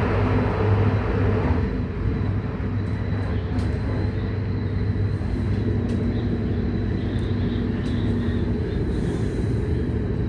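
Moving train, steady low rumble with a thin high whine over it and a few faint clicks.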